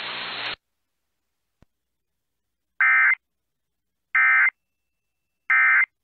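Weather-radio hiss cuts off about half a second in. Then come three short, identical buzzing bursts of SAME digital data tones, about a second and a half apart: the End Of Message (NNNN) code that closes a NOAA Weather Radio Required Weekly Test.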